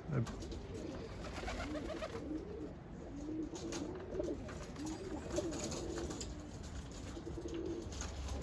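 Birmingham roller pigeons cooing, a steady run of low, wavering coos one after another.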